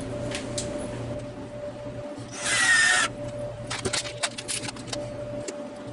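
A drill driving a screw into wood without a pilot hole, in one short burst of about half a second partway through, followed by a run of light clicks and knocks.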